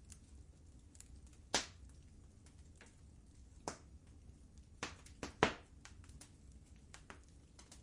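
Wood fire crackling in a fireplace: irregular sharp pops and snaps over a faint low rumble, with a loud pop about a second and a half in and a quick cluster of pops around five seconds in.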